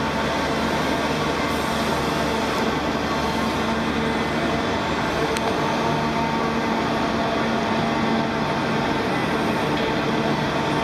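The Grand Elephant walking machine's diesel-hydraulic drive running steadily as it moves, a continuous mechanical hum and rumble.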